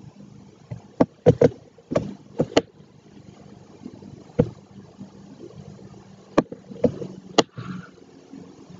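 Sharp taps of a stylus pen on a tablet screen, about ten at irregular intervals, bunched near the start and again near the end, over a faint steady hum.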